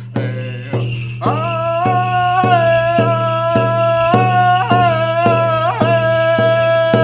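Native American hand drum beaten in a steady beat, a little under two strokes a second, with a man's singing voice holding a long high note from about a second in. Metal jingles on a dancer's regalia shake along with the beat.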